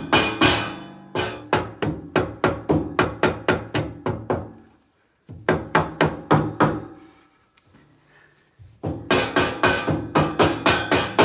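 Hammer tapping through a towel on a metal radiator grille to knock it loose, about four quick taps a second in three runs with short pauses. Each tap leaves the grille ringing briefly.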